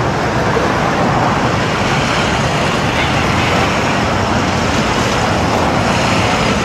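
Steady road traffic noise on a busy city street, with tow trucks and cars driving past.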